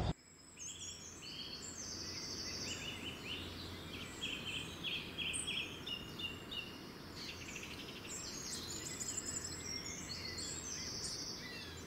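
Small birds chirping and singing in short, rapid trills over a steady hiss of outdoor background noise.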